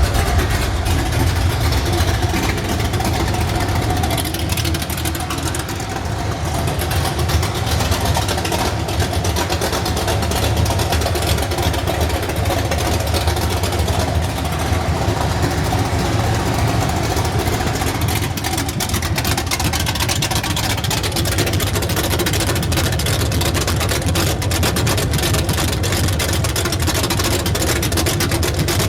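383 stroker small-block Chevy V8 with a Comp Cams XR282HR hydraulic roller cam, running at a rough idle.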